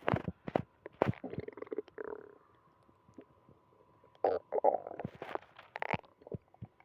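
A human stomach growling and gurgling in irregular bursts of squelches and sharp pops, with a lull of about two seconds in the middle. The gut is still churning after a night of diarrhea.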